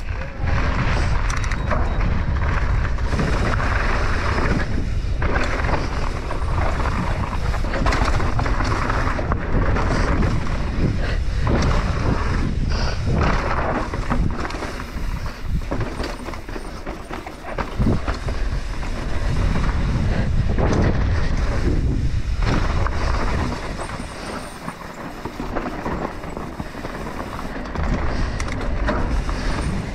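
Mountain bike descending fast on a dry dirt and gravel trail: wind buffeting the microphone and tyres rolling over loose dirt, with frequent knocks and rattles from the bike over bumps.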